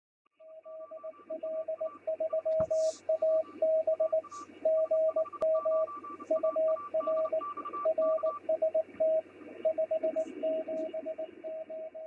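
Morse code (CW) heard over a ham radio receiver: a single beeping tone keyed on and off in short dots and longer dashes, over a steady background of receiver hiss.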